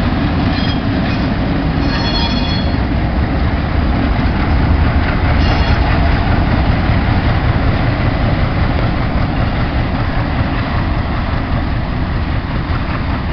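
Alco six-axle diesel locomotives, among them a C636, running past at slow speed with a steady heavy diesel sound throughout. Faint high-pitched wheel squeals come in about half a second to two and a half seconds in, and briefly again around five and a half seconds.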